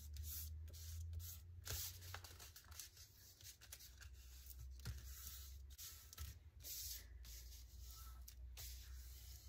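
Faint rustling and rubbing of hands pressing and smoothing a folded sheet of printer-weight pattern paper to seal its glue-stick seam, over a low steady hum.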